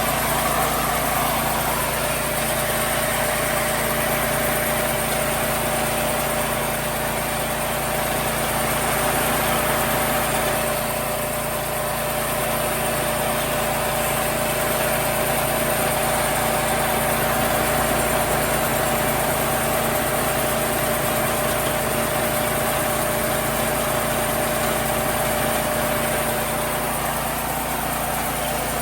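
Small gasoline engine of a home-made bandsaw sawmill running steadily at a constant speed.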